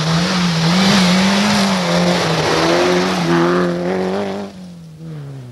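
Rally car driven hard through a gravel bend: its engine is at high revs with a note that wavers up and down with the throttle, over the hiss of tyres and spraying gravel. It passes close, and the sound drops away about four and a half seconds in, leaving the engine fading into the distance.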